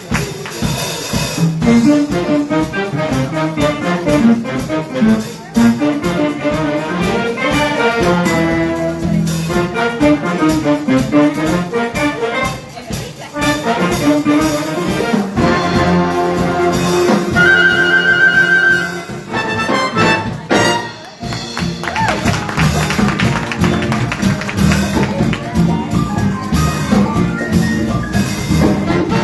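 High school big-band jazz ensemble playing an up-tempo chart, with brass and saxophones over the rhythm section and a brief break about twenty seconds in.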